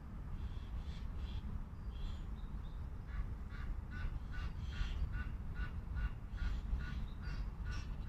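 Waterfowl calling in a fast, even series, about three calls a second, starting about three seconds in. Before that come a few short high bird chirps, with a steady low rumble underneath throughout.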